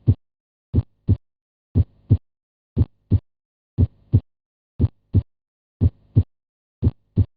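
Recorded human heartbeat: seven 'lub-dub' beats at about one a second, each the first heart sound followed about a third of a second later by the second heart sound.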